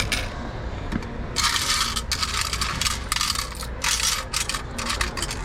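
Coins from a candy vending machine's coin box jingling and clattering in a quick series of short bursts, starting about a second and a half in.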